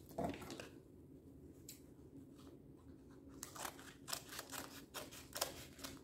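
Scissors snipping through a paper coffee filter: quiet, separate cuts, with a quick run of snips in the second half.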